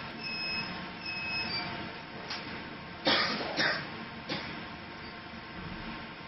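Computer-to-plate machine running with a steady hum while thin aluminium printing plates are handled on its loading table. Three short electronic beeps sound in the first second and a half. A pair of sharp metal-plate clatters comes about three seconds in, with lighter knocks before and after.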